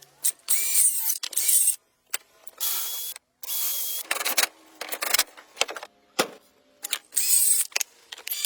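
A small power tool run in short bursts of half a second to a second, about six times, with brief pauses between.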